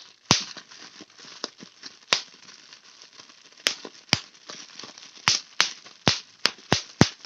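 Product packaging being handled and opened: a low crinkling rustle broken by a series of sharp snaps and pops at irregular intervals, several close together in the second half.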